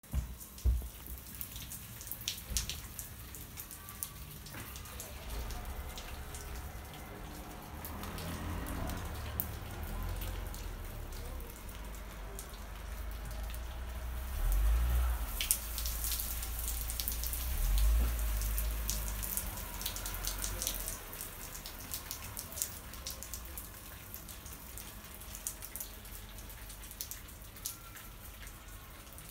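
Water washed off the balcony above dripping and splashing down onto a balcony in many scattered drops, thickest in the middle, carrying dog urine and feces down from the dogs kept upstairs. A low rumble swells twice in the middle.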